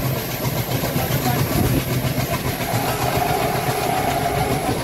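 ALCO WDM3A diesel-electric locomotive's V16 turbocharged engine chugging steadily under load as it hauls the train, with the coach wheels clicking over the rails. A steady higher whine joins about halfway through.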